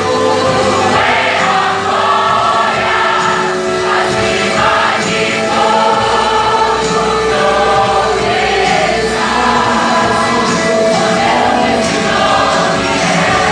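Choir singing a Christian worship song in Portuguese, with musical accompaniment, at a steady loud level.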